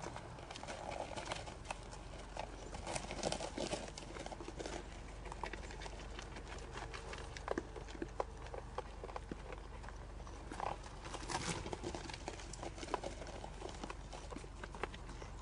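White-tailed deer hooves stepping and crunching on packed snow, an irregular scatter of footfalls. A steady low hum runs underneath.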